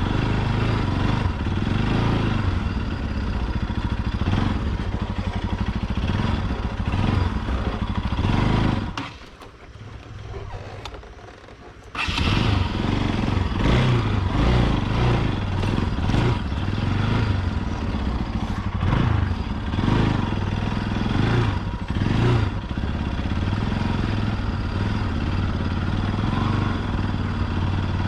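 Motorcycle engine running under way on a rough off-road track. About nine seconds in it drops away to a much quieter sound for about three seconds, then returns suddenly at full level.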